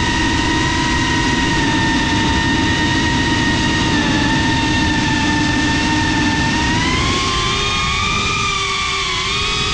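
GEPRC CineLog35 cinewhoop FPV drone's motors and propellers whining steadily in flight over a rushing of air, the pitch rising about seven seconds in as it throttles up to climb, then dipping and rising again near the end.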